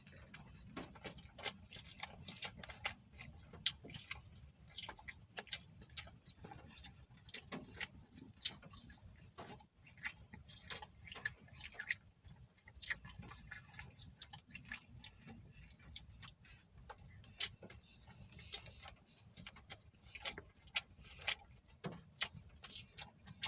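A person chewing crisp food close to the microphone: irregular sharp crunches and mouth clicks, several a second, over a faint steady low hum.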